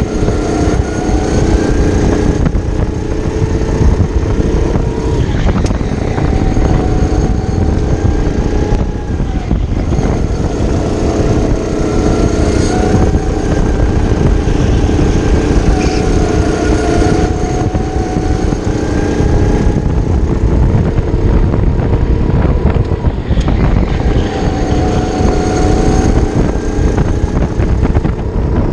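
Onboard sound of a racing kart's small engine, a Briggs & Stratton LO206, running under race load, its revs rising on the straights and dropping into the corners every few seconds. Heavy wind rumble on the camera microphone runs under it.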